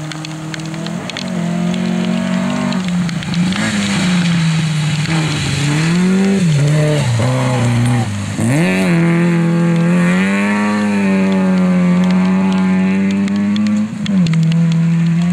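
Opel rally car's engine revving hard through the gears, its pitch climbing and dropping several times as it shifts and lifts off the throttle. The engine is loudest as the car passes close about eight seconds in, holds high revs steadily, and dips briefly near the end.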